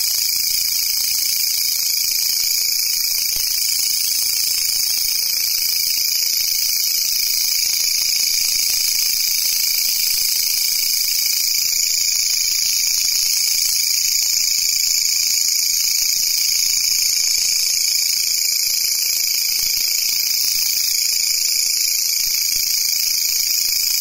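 Long-horned grasshopper (katydid) stridulating: a steady, high-pitched buzzing trill that does not break.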